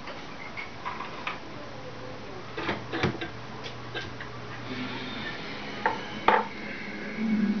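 Scattered sharp clinks and knocks of household clatter, several close together about three seconds in and two louder ones past six seconds. A low steady hum comes in near the end.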